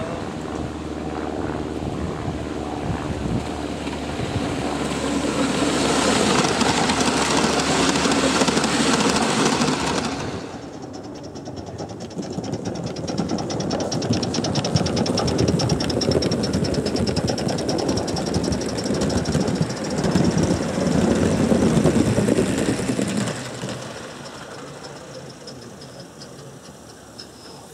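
Gauge 1 live steam model train running on garden railway track: a dense, fast rhythmic clatter of wheels and exhaust. It drops abruptly about ten seconds in, builds again, and fades over the last few seconds.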